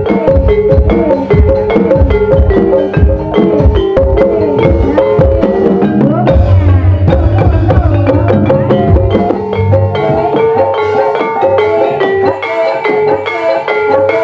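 Live Javanese gamelan music for an ebeg dance: struck mallet instruments play a repeating melody over low drum strokes. About six seconds in, the drumming changes and low held notes enter for a few seconds.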